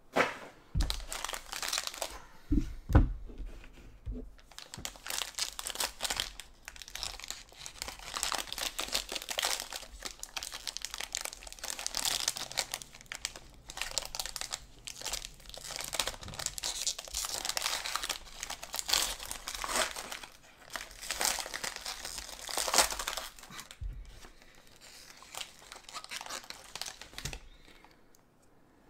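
Foil wrapper of a Panini Playbook football card pack crinkling and tearing as it is opened by hand, with a few knocks in the first three seconds.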